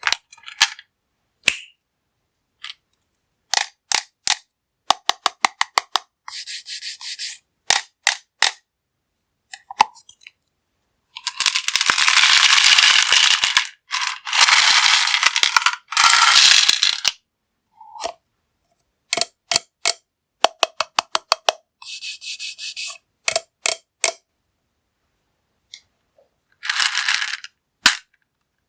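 Hard-coated candies such as M&M's and gumballs dropping and pouring into a container: single pieces clicking down one by one, then rattling pours of many at once, the longest ones about halfway through. Dead silence between the drops.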